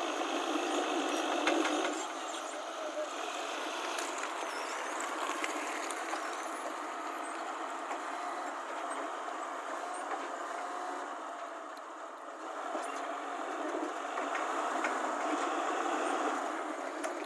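Heavy vehicle engine running steadily, with a brief dip in loudness a little past the middle.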